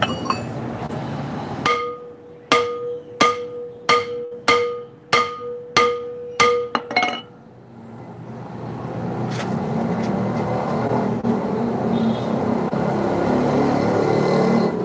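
Hammer blows on a truck's steel brake drum, about ten strikes roughly every 0.6 s, each leaving a ringing metallic tone; the drum is stuck and is being knocked loose. After the blows stop, a steady noise swells and holds through the second half.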